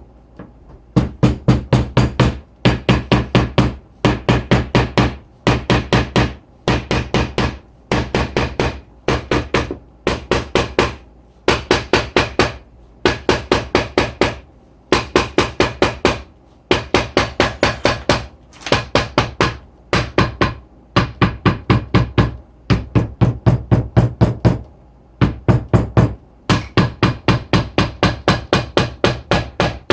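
A mallet striking a leather tool in quick bursts of about five to eight taps, each burst about a second long with a short pause between, over and over.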